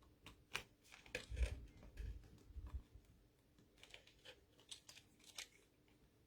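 Faint scattered clicks and taps of hands handling small adhesive decorative dots, picking them off their sheet and pressing them onto a paper card, with a few soft low thumps about one and a half to three seconds in.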